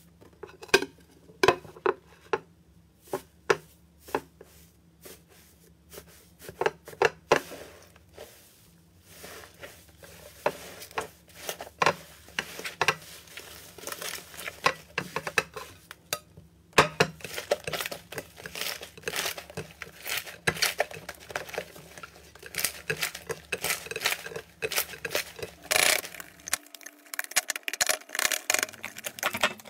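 Crumbly 'tofu dreg' slime pressed, kneaded and scraped by hand, giving many sharp crackles and crunches. They come scattered at first and grow into dense crackling about halfway through.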